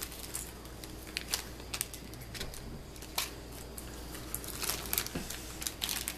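Wrapped candy being sorted on a granite countertop: scattered light crinkles of wrappers and small clicks as pieces are picked up and set down.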